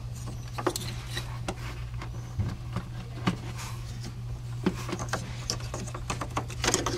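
Small, irregular clicks and rattles of a plastic wiring harness and connector being handled and worked back into place by hand in an engine bay, over a steady low hum.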